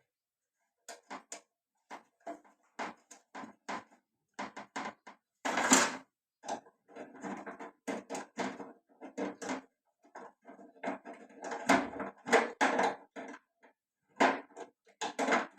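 Metal gas-stove parts being handled and worked on with tools: a busy run of clicks, knocks and short scraping sounds.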